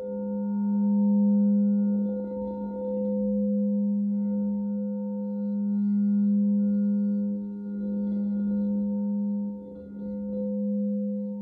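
Zeal chakra crystal singing bowl sounding a deep, steady hum with fainter higher overtones, swelling and ebbing in slow waves, with a brief dip about ten seconds in.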